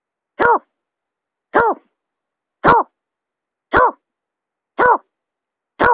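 Snipe lure call (suara pikat berkik): a short call that rises and falls in pitch, repeated six times at an even pace of about one per second.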